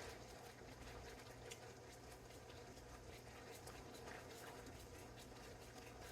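Faint sizzling and ticking of a sauce simmering and thickening in a pan, over a low steady hum.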